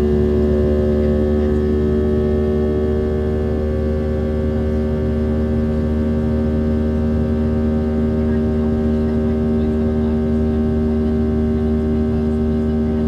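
Steady cabin drone of a Boeing 737-700 in flight: the CFM56 engines and airflow give a constant low rumble with several steady humming tones over it.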